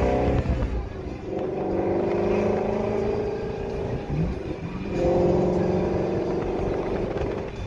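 Car engine exhaust note heard from inside a moving car, swelling and easing off three times with the pitch drifting as the cars pull along. The loudest swell comes about five seconds in.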